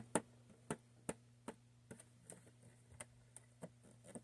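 A run of light clicks, about two or three a second, over a faint steady low hum.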